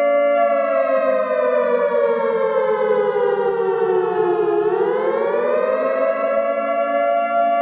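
Civil defence air raid siren wailing out an alert: a loud, multi-tone howl that slides slowly down in pitch for about four seconds, then climbs back up and holds steady near the end.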